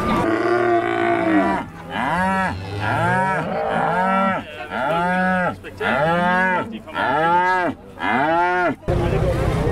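Cattle mooing in a quick run of short calls, about one a second, each rising and then falling in pitch; the calls stop abruptly near the end.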